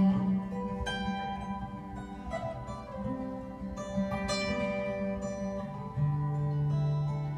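Acoustic guitar played solo in a slow instrumental passage with no singing. Single notes are plucked and left to ring over a held bass, and a deeper bass note comes in about six seconds in.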